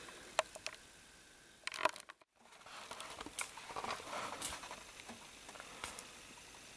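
Crunching and crackling in dry snow and brush, with scattered sharp clicks. The sound drops out briefly about two seconds in.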